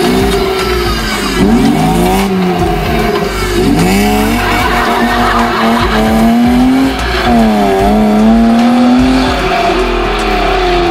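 BMW E36 rally car engine driven hard, its revs dipping and climbing again about three times as the car slides through the turns. Under it, a hiss of tyres on wet tarmac.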